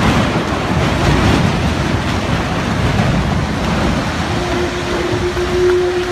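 Tunnel boring machine cutting through the last of the rock at breakthrough: a loud, continuous rumbling and grinding, with a steady hum coming in about four seconds in.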